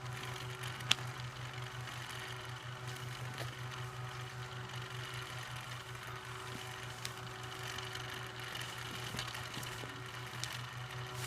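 A small motor humming steadily with a fast, even pulse, with a few faint clicks.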